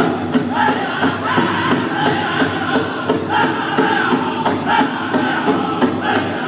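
Powwow drum group playing a chicken dance song: men singing in high voices over a steady beat on a big drum, with crowd noise underneath.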